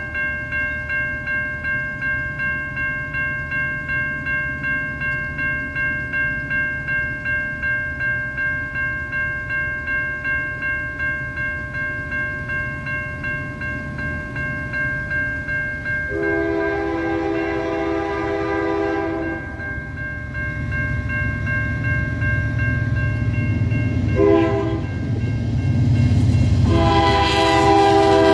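Grade-crossing warning bell ringing steadily at about two strokes a second. Over it, the Nathan K3L three-chime horn of a CN GE C44-9W diesel locomotive blows for the crossing: a long blast about sixteen seconds in, a short one about eight seconds later, and another long one near the end. Meanwhile the locomotive's engine and wheels grow louder as it arrives at the crossing.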